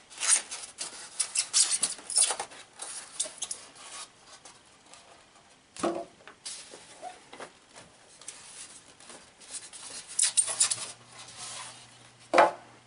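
Styrofoam packing inserts and boxes being pulled out of a cardboard shipping box: irregular scraping, rubbing and squeaking, with a knock about six seconds in and another near the end.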